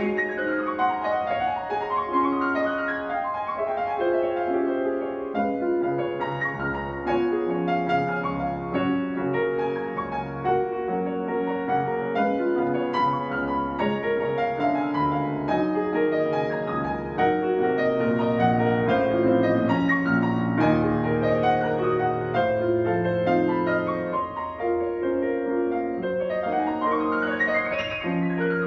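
Solo classical piano piece played on a Steinway grand piano: fast runs sweep up the keyboard and back down near the start and again near the end, with steady melody and chords in between.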